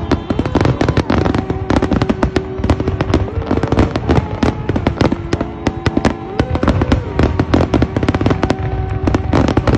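Fireworks display: aerial shells bursting in a rapid, continuous string of bangs and crackles, several a second.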